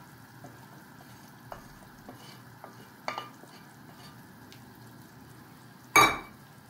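A spoon stirring in a pot of soup cooking on the stove, over a steady faint sizzle. There are a few light clicks, a sharper knock about three seconds in, and a loud sharp knock about six seconds in.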